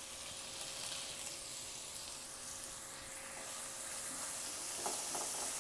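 Spice paste sizzling steadily in hot oil in a frying pan, a soft even hiss. Near the end come a few light knocks as tomato pieces go into the pan and a spatula stirs them in.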